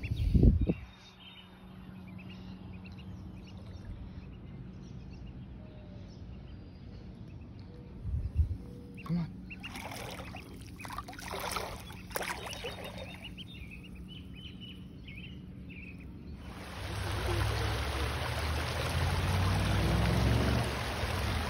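Shallow rocky stream running over stones, starting suddenly about three-quarters of the way in. Before it there is quiet outdoor ambience with a soft low thump just after the start and a few brief faint noises in the middle.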